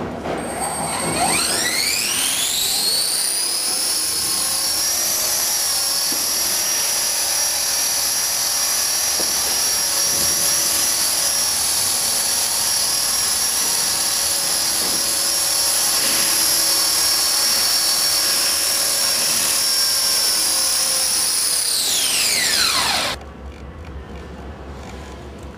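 Small electric RC helicopter's motor and rotor spinning up with a rising whine, running at a steady high pitch, then spooling down and stopping about 23 seconds in.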